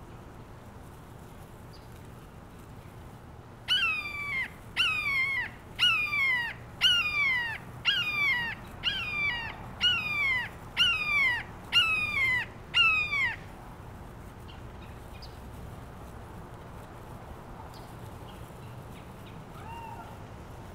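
A large bird of prey, which the crafter calls a falcon, giving a series of about ten harsh screaming calls, each sliding down in pitch, about one a second, then falling silent; a much fainter call of the same kind comes near the end.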